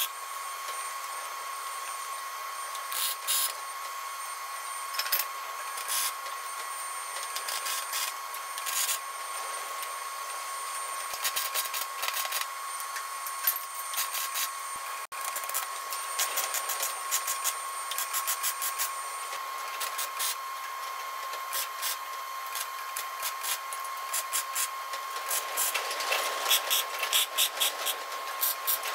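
MIG welder putting tack welds on steel plate: short bursts of arc crackle come and go, with a long run of closely spaced tacks near the end. A steady high whine runs underneath.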